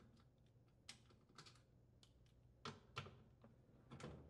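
Faint, irregular clicks of a socket ratchet, a handful of sharp ticks spread out, as a half-inch socket loosens the bolts holding the washer's gear case to the base.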